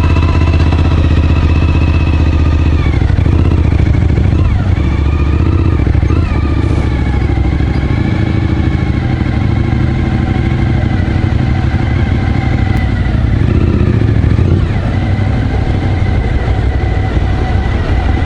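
Suzuki V-Strom motorcycle engine running steadily at low speed, its pitch shifting slightly a few times. A few brief high rising-and-falling tones sound over it.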